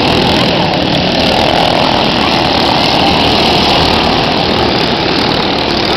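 Small engines of several racing karts running at speed together, a loud, steady drone as they pass close by.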